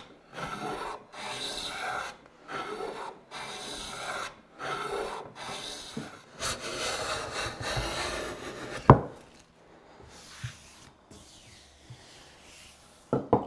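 Hand plane cutting a small chamfer along the long-grain edge of a hardwood cutting board: a series of short shaving strokes, about one a second. The strokes stop with a single sharp knock about nine seconds in, followed by a few faint knocks.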